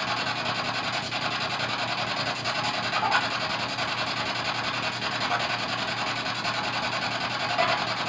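P-SB7 spirit box sweeping through radio stations: a steady hiss of static with a fast, even pulsing, and brief snatches of radio sound about three seconds in and again near the end.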